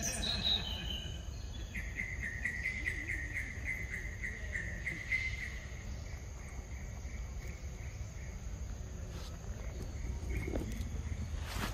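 Forest insects calling: a steady high-pitched whine throughout, joined for a few seconds by a rapidly pulsing, chirring call. A short falling call is heard at the very start.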